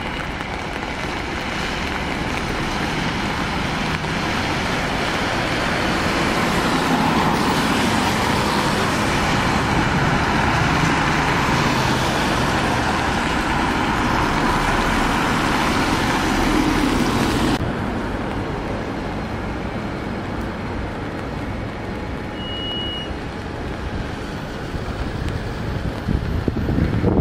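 Coach and passing traffic on a wet road: engine running and tyres hissing, building up as the coach pulls away. About two-thirds of the way through the sound drops suddenly to quieter traffic, with one short high beep a few seconds later and another coach's engine growing louder at the end.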